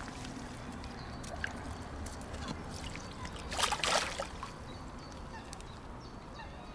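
A mirror carp thrashing out of a wet landing net into shallow water: a short burst of splashing a little past halfway, with quieter water sloshing before and after.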